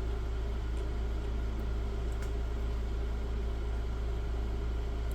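Steady low background hum with a faint hiss, with a few faint ticks in the first couple of seconds.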